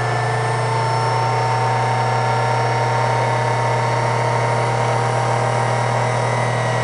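Benchtop drill press running steadily while a small bit drills a hole into a brass part, a constant motor hum with a few steady whining tones.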